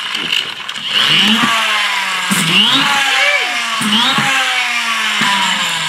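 Friction-motor flywheel in a toy crane truck whirring as the truck is pushed back and forth along the floor. It gives a whine that rises quickly with each push and then slides slowly down as the flywheel coasts, several times over.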